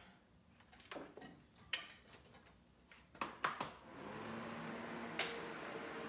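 A few knocks and clicks as a cordless Ryobi fan is handled, then about four seconds in the fan starts running with a steady hum.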